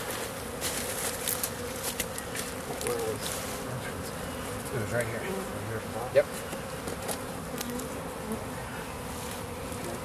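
A disturbed bee colony buzzing steadily as its nest is opened and taken out of a wall cavity. Scattered clicks and rustles of handling run over it, with one sharp knock about six seconds in.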